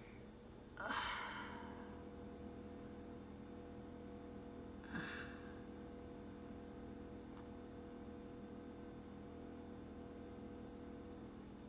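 A person sighs, a breathy exhale about a second in, then a shorter breath out about five seconds in, over a faint steady hum.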